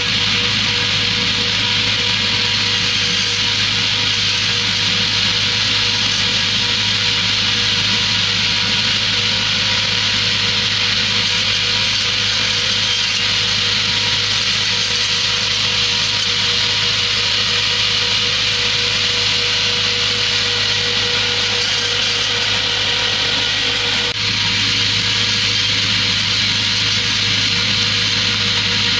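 ID David PFS-V tractor-mounted disc pre-pruner at work: its rotating circular saw blades cut through citrus branches over the tractor's engine, a steady, even sawing noise.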